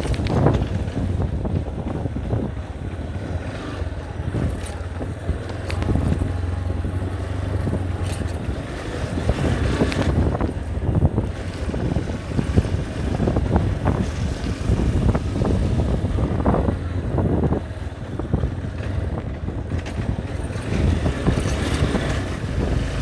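Motorcycle engine running steadily during a ride, with repeated knocks and rattles and wind buffeting the microphone.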